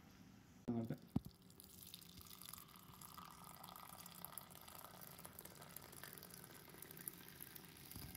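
Tea being poured, a faint steady trickle of liquid into a cup. A brief voice sound and a light click come about a second in.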